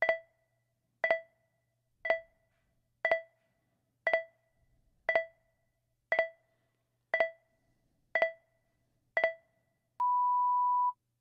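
Countdown timer sound effect: ten short electronic beeps, one a second, then a single longer steady beep lasting about a second.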